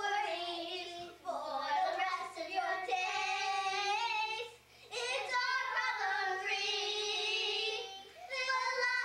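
Young girls singing together, unaccompanied, in long held phrases with short breaks between them.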